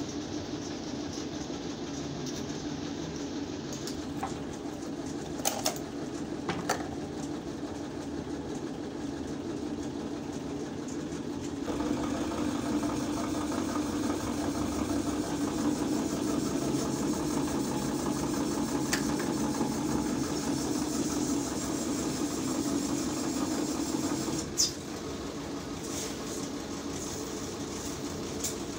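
Steady hum of plastic-moulding workshop machinery running, with a couple of sharp metallic clicks from the steel hand mould being handled. The hum grows louder partway through and drops after a sharp click near the end.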